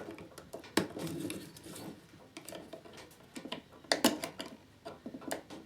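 Hands working on a lithium-ion battery pack of 18650 cells, picking at and peeling its sticky insulation: scattered light clicks and rustles, with a few sharper clicks about a second in, near the middle and near the end.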